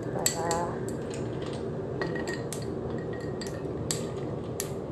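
Cutlery and dishware clinking against each other in a string of light, separate knocks, over a steady background hum.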